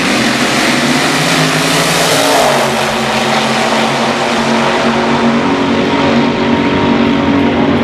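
Two front-engine dragsters launching side by side and running at full throttle down a drag strip: a loud, dense engine blare that thins a little in its highest tones as the cars pull away down the track.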